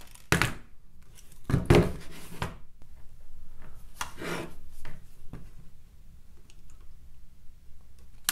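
Metal hand tools handled and rubbed on a work table in a few short scraping bursts, then one sharp click right at the end as end-cutting nippers snip the copper wire coiled on a fishing hook's shank.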